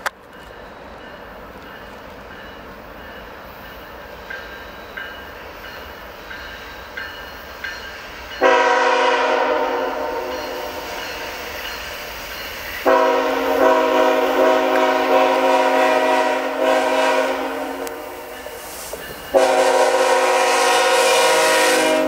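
A CN GE ET44AC diesel locomotive leading a freight train sounds its air horn in three long blasts, starting about eight, thirteen and nineteen seconds in; the last is still sounding at the end. Before the horn, the approaching train's rumble is faint and slowly grows. The blasts are the warning for the level crossing the train is nearing.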